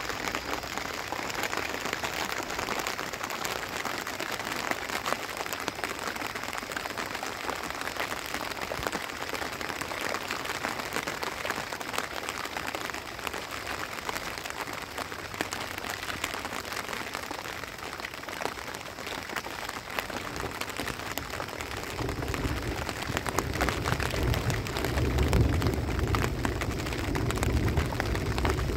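Rain pattering steadily on tent fabric, a dense haze of fine drop ticks. About three quarters of the way in, a deeper low rumble swells up beneath it.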